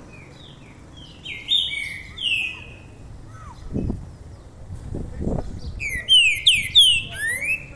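A caged black songbird singing: a run of clear whistled notes that slide up and down in pitch, coming in quick clusters that are loudest near the end. A few low thuds sound around the middle.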